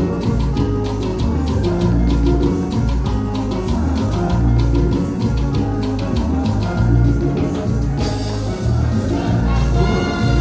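Live Latin dance band with bass, drum kit and hand percussion (congas) driving a quick, even beat. About eight seconds in the percussion thins out and sustained trumpet lines come to the front.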